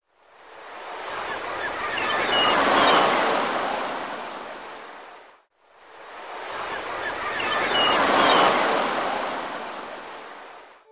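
Ocean surf: a wave rushing in and drawing back, each swell rising and falling over about five seconds, heard twice with the second an exact repeat of the first.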